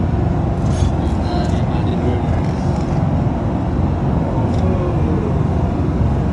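Steady airliner cabin noise in flight: the low, even rush of the engines and airflow. A few short rustles and clicks of handling come through about a second in and again near the middle.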